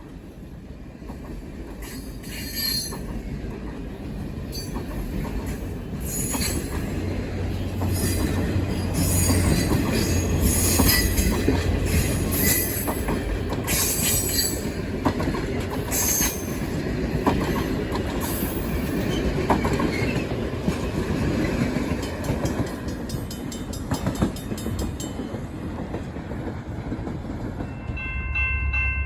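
Canadian Pacific Holiday Train rolling past on the rails: a steady rumble of wheels on track that grows louder over the first ten seconds or so, with repeated short high-pitched metallic wheel squeals and clicks.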